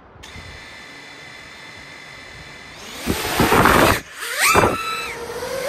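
5-inch FPV quadcopter's brushless motors whining faintly and steadily at idle, then a loud rush of motor and propeller noise about three seconds in as it throttles up and lifts off. After that the motor whine rises and falls in pitch with the throttle.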